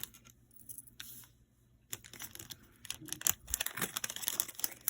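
Plastic packaging crinkling and crackling as it is handled and opened, with scattered sharp clicks at first and a dense run of crackling from about two seconds in.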